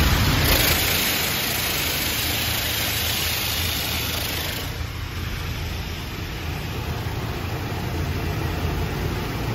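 Mark VII car wash heard from inside the car: a loud hiss of water and foam spraying against the body and windows, which cuts off about four to five seconds in, over a steady low rumble.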